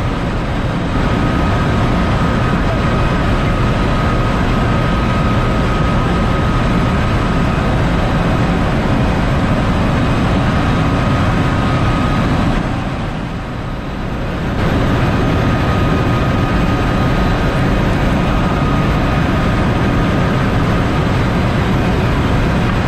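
Steady, loud din of a ship's engine-room machinery running, with a constant high whine through it; it eases for a second or two about halfway through.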